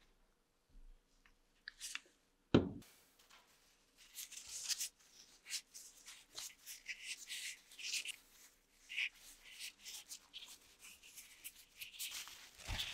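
Gloved fingers rubbing and working a leather strap: irregular scratchy rubbing and squeaks as burnishing compound is worked into the leather and its edge. A single sharp click comes about two and a half seconds in.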